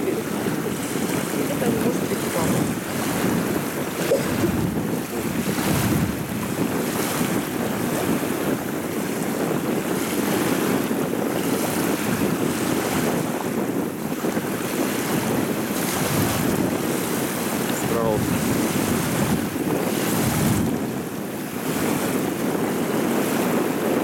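Choppy river waves lapping, with wind buffeting the microphone in a steady noise.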